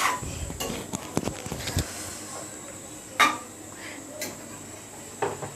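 A metal spatula scraping and knocking against a metal cooking pot as chunks of sponge gourd and potato are stirred, with irregular clinks and one sharp clank about three seconds in.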